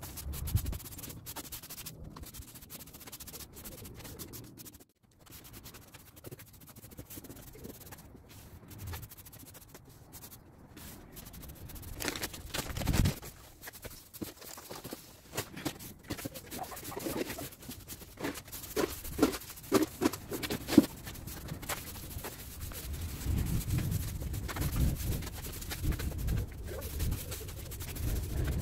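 Push broom sweeping sand across block paving, irregular brushing and scraping strokes. A few short pitched sounds come through around two-thirds of the way in.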